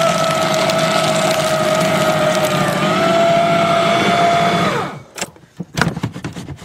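Electric paper shredder running as it shreds old newspaper: a steady motor whine over the rasp of cutting paper, dipping slightly in pitch about halfway through, then winding down about five seconds in. A few light knocks follow.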